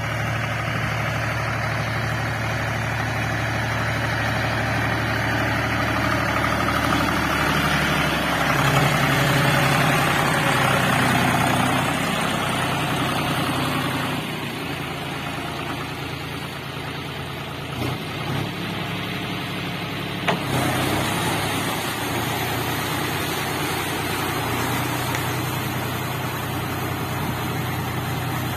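John Deere 5050D tractor's three-cylinder diesel engine running steadily under load as it drives a rotary tiller through wet paddy mud. It grows louder for a few seconds near the middle, then drops back. Two short knocks come near the end.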